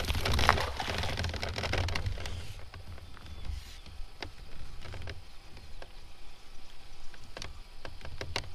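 Kayak moving through the water, with water sloshing and splashing against the hull for the first couple of seconds. Then come scattered light knocks and clicks from the boat over a steady low rumble.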